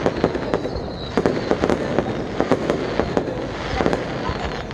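Aerial fireworks going off: shells launching and bursting in an irregular barrage of bangs, several a second.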